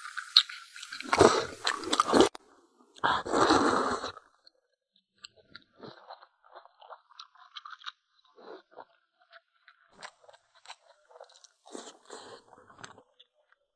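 A person chewing and crunching food close to the microphone. Loud crunchy bites come in the first four seconds, then softer chewing with small clicks and smacks.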